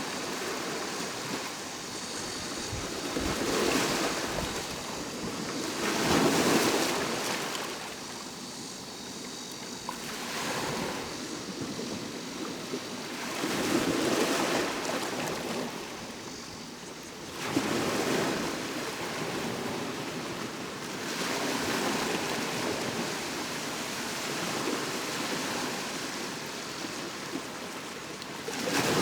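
Sea waves breaking and washing up the shore in surges every few seconds, loudest about six and eighteen seconds in. A faint, steady summer cicada drone sits above the surf.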